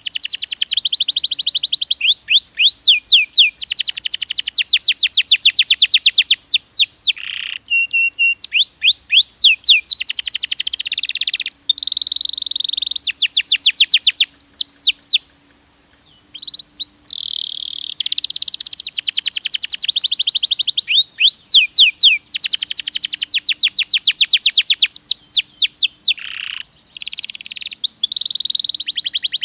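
Domestic canary singing a long, fast song of rapid high trills and rolls, with a short pause about halfway through.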